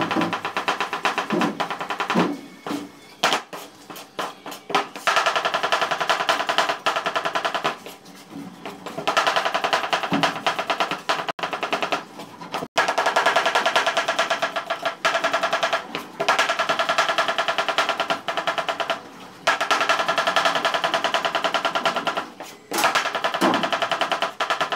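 Kitchen knife finely slicing onion on a cutting board: fast runs of rapid blade strikes on the board, each lasting a few seconds, with short pauses between runs.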